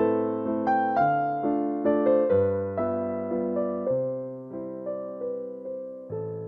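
Background music: a gentle electric piano melody, notes struck every half second or so and left to fade.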